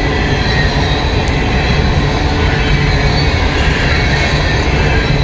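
Empty coal cars rolling past close by, a steady, loud rumble and rattle of steel wheels on rail. The train is running back from the power plant unloaded.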